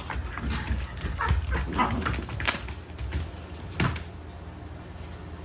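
Mame shiba dogs giving short whimpers and yips during play, a run of brief calls in the first half, with a sharp click about four seconds in.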